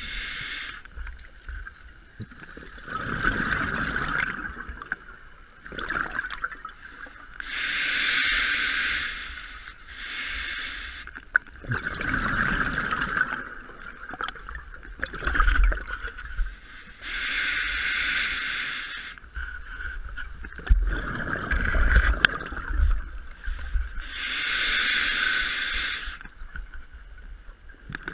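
Scuba diver breathing through a regulator underwater: hissing inhalations alternating with bubbling, gurgling exhalations, about one breath every seven to eight seconds.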